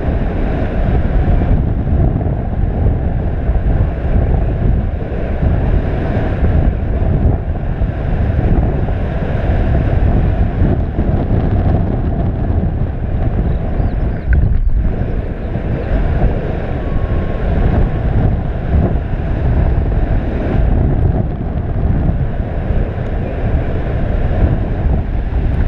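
Airflow from a paraglider in flight buffeting the camera microphone: loud, steady wind noise, deepest in the low end, with a brief dip a little past halfway.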